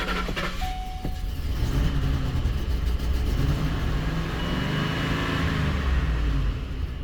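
Ford 5.4L Triton V8 of a 2010 Expedition running just after a cold start, revved up and back down twice as it is held on the throttle to keep it from stalling. A steady whine and a sharp click come in the first second.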